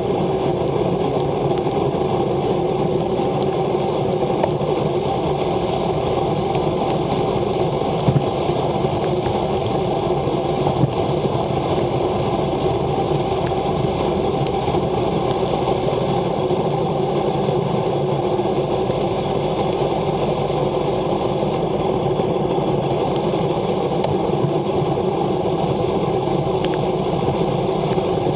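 Steady rushing of wind and wet tyres from a road bike descending at about 50 km/h in the rain, picked up by a handlebar-mounted Garmin VIRB action camera.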